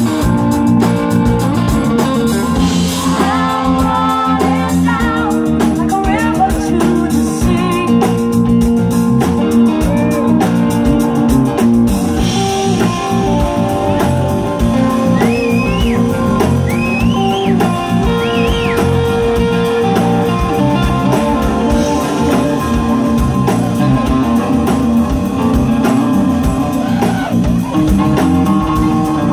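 Live band playing a song on acoustic guitar, electric bass and drums, with women singing.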